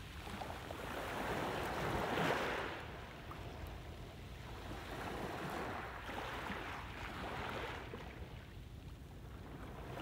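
Small sea waves washing up onto a pebble beach and drawing back in surges a few seconds apart. The loudest comes about two seconds in.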